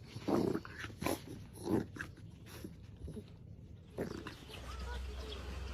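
A dog vocalising: three short, low, gruff sounds in the first two seconds, then a few faint high whines near the end.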